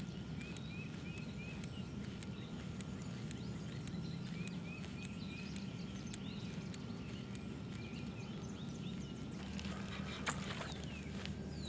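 Songbirds calling in the surrounding trees, one giving a quick run of four high chirps, twice, over a faint steady low hum and a thin high steady tone that stops near the end.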